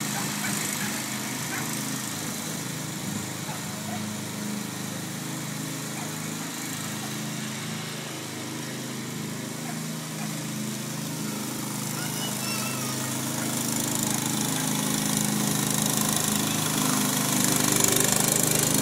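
Zero-turn riding mower's engine running steadily as it mows, growing louder over the last few seconds as the mower drives up close.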